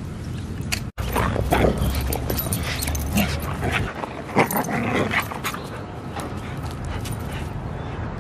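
A dog making a run of short, high calls close to the microphone, most of them between about one and five seconds in, over wind noise.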